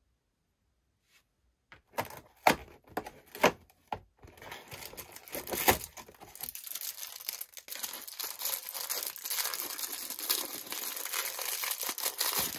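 A few sharp rips of a perforated cardboard door being torn open on a surprise box, then tissue paper crinkling and rustling steadily as a wrapped mini figure is pulled out and unwrapped. It stops abruptly at the end.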